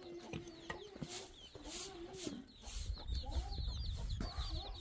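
Hens clucking, with one drawn-out call at the start, while small birds chirp rapidly in the background and a few sharp clicks sound.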